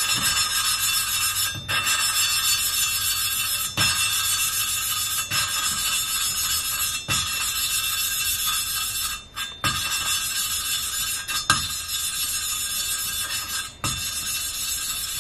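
An exhaust valve being lapped by hand into a Suzuki F10A cylinder head with grinding paste: a continuous gritty rasp with a high ringing tone, broken by short breaks every couple of seconds. The grinding is high-pitched, which the speaker says is the sign that the paste is wearing out as the valve seats.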